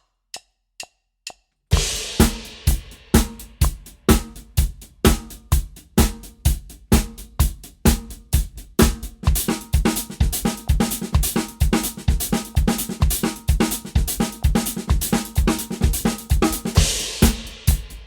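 Four sharp count-in clicks, then a drum kit comes in about two seconds in, playing a fast, evenly spaced sixteenth-note paradiddle groove across snare, hi-hat, cymbals and bass drum.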